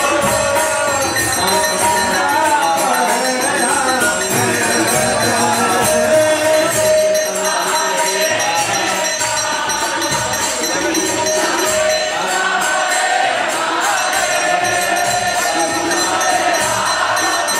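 Devotional kirtan: many voices singing a chant together over the steady jingling of karatalas, small hand cymbals.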